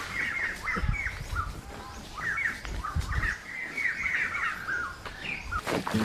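Birds chirping: many short, quick chirps that bend up and down in pitch, coming in clusters with a brief lull after the first second or so, over a few soft low thumps.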